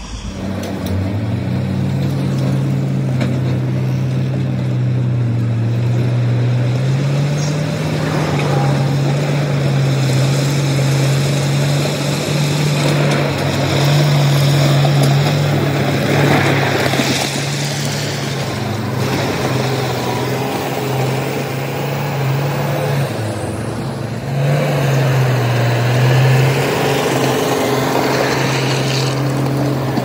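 Heavy diesel construction machinery running steadily, a low hum that shifts pitch a few times, with the rough noise of crushed stone being pushed that swells around the middle and again near the end.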